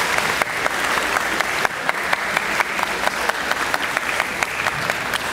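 Audience applauding, dense at first and thinning to scattered individual claps over the last few seconds.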